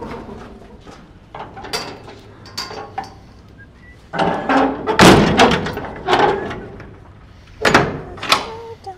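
Metal clanks and bangs of a livestock trailer's rear door and latch being handled: a few light knocks, then a run of louder bangs, the loudest about five seconds in.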